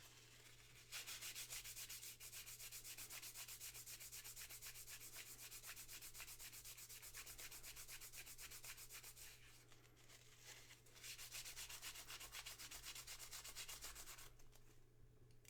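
Faint, rapid back-and-forth scrubbing of a small part by hand, as in cleaning the tarnished parts of a vintage headlight switch. It comes in two stretches with a short pause about ten seconds in, and stops shortly before the end.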